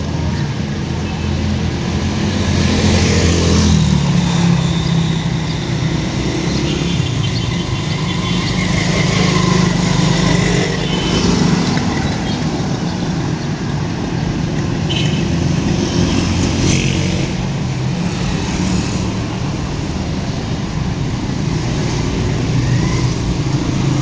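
Busy street traffic: engines of cars, motorcycles and motor rickshaws running and passing close by, with a steady hum of traffic throughout.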